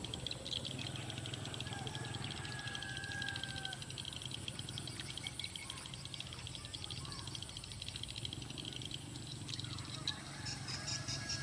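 Outdoor ambience: a steady, rapid, high-pitched chirring over a low steady hum, with a faint held tone a few seconds in.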